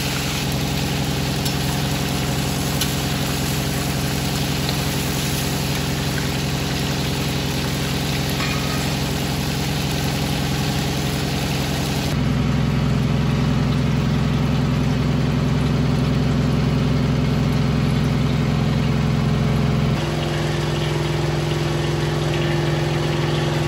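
Steady motor hum of a kitchen range hood fan over oil sizzling as fish fry in a wok. The hum's pitch and loudness change abruptly about twelve seconds in and again near twenty seconds.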